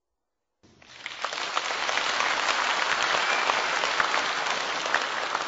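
Theatre audience applauding, a dense patter of many hands clapping that starts about half a second in.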